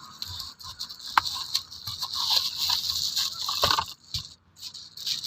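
A few sharp clicks and light rattles from a small part being handled, over a steady hiss.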